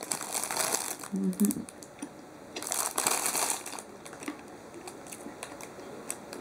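Thin plastic bread wrapper crinkling as it is handled and pulled down around a pastry, in two main bursts with small scattered crackles between.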